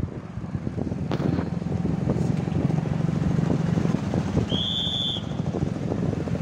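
Motorcycle engine running steadily at low road speed close by, a pulsing low drone. A short high-pitched beep sounds about four and a half seconds in.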